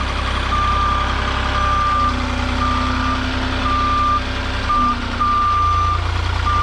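Forklift reversing alarm beeping about once a second, with the forklift's engine running underneath. The beeps signal that it is moving in reverse.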